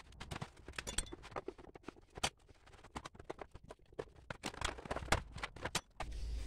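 Craft knife cutting and snapping the thin vacuum-formed plastic inside a power-tool case, giving irregular clicks, snaps and knocks as the cut pieces break free. Near the end a steady low hum takes over.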